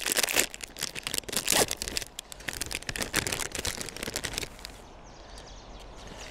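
Packaging crinkling and rustling in the hands as an accessory pack is opened and unwrapped, in quick irregular crackles that stop about four and a half seconds in.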